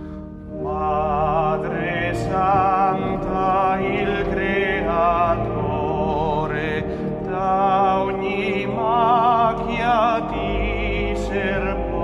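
Background music: a voice singing slow phrases with wide vibrato over sustained low held chords, the singing starting about a second in.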